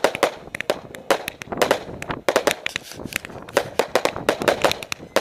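Fireworks going off in quick, irregular succession: a dense run of sharp bangs and pops, several a second, as the shells burst.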